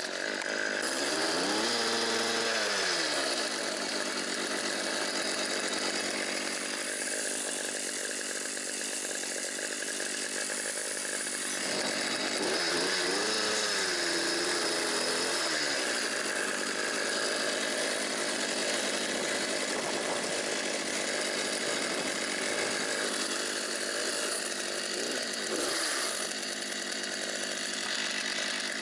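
Partner 350 two-stroke chainsaw starting up and running at high throttle, sawing into willow and birch wood. Its pitch swings up and back down twice, near the start and again about halfway through.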